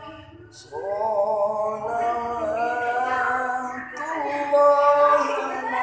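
A man singing sholawat unaccompanied: long held notes with sliding, ornamented turns between them, starting about half a second in after a short pause.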